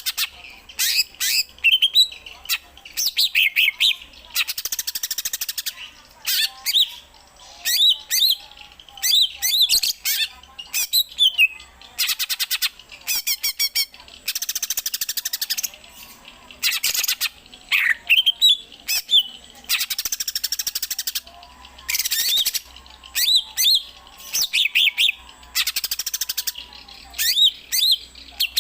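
Green leafbird (cucak ijo) singing a long, varied song: harsh raspy chattering bursts, part of its imitation of fighting sparrows ('gereja tarung'), alternate with quick whistled notes that slide up and down.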